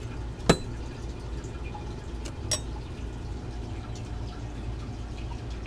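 Steel wrenches being handled: one sharp metallic click about half a second in, then two fainter clicks close together about two seconds later, over a steady low hum.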